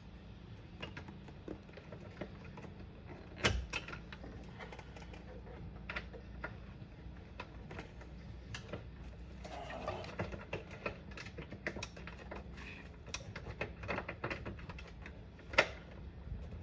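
Scattered small clicks and taps of bolts and nuts being handled and fitted by hand on a headlight motor mount, with two sharper knocks, one a few seconds in and one near the end.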